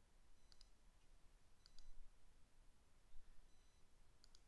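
Three faint computer mouse clicks, each a quick press-and-release pair, about half a second in, near two seconds and near the end, against near silence.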